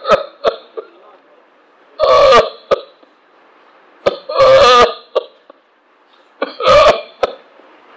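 A man's voice breaking into choked, sobbing bursts: three loud vocal heaves about two seconds apart, with quiet between them.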